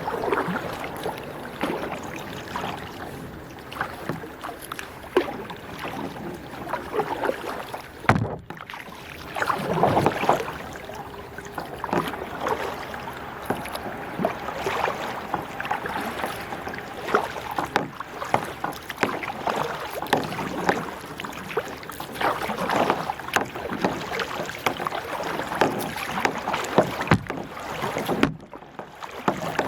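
Kayak paddling on calm water: paddle strokes splashing and dripping, with irregular sharp knocks and clicks throughout.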